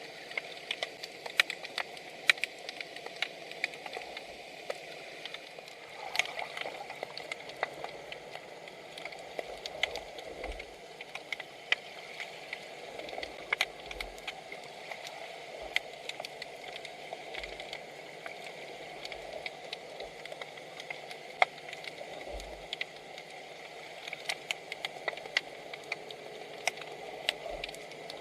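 Underwater ambience: a steady hiss with irregular sharp clicks and crackles, several a second.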